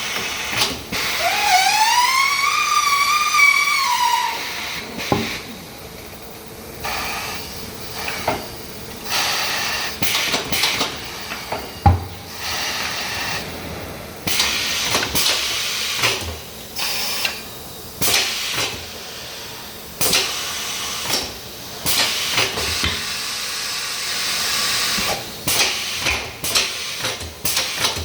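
Pneumatic tyre changer working a stubborn low-profile tyre off its wheel: repeated bursts of air hiss with sharp clicks and knocks. About a second in, a squeal rises and falls in pitch for roughly three seconds.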